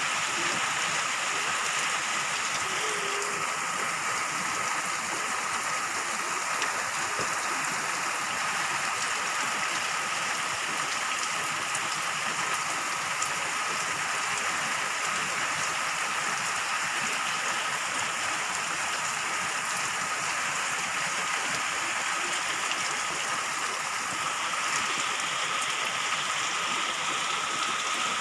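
Steady rain falling, an even hiss of many drops without pause.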